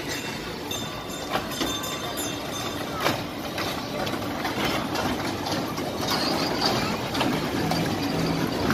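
Small steel kiddie roller coaster train rolling along its track, a steady wheel rumble with occasional sharp clacks, a little louder in the second half as the cars pass close by.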